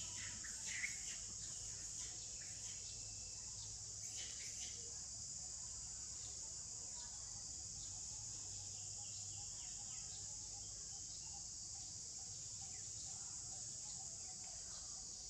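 Steady high-pitched insect drone, like crickets or cicadas, with a few short faint chirps about a second in and again around four seconds in.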